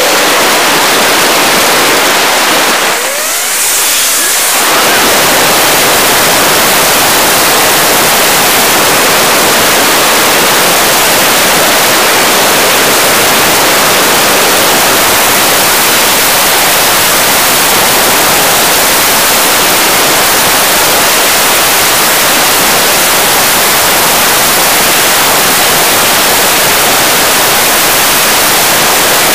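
Loud, steady static-like hiss with no engine or voice in it, dipping briefly about three seconds in.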